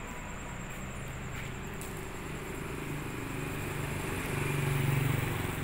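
Road traffic: a motor vehicle's engine passes, growing louder to a peak about five seconds in and then easing off.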